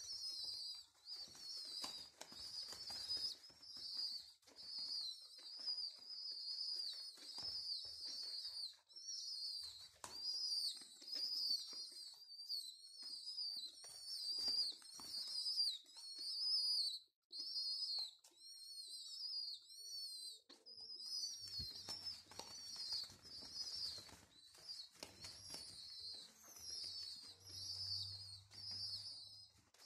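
Homing pigeon squab begging while being hand-fed: a long string of high, thin squeaking peeps, about two a second, each rising and falling, with a couple of short breaks midway. Soft rustling of its flapping wings lies underneath.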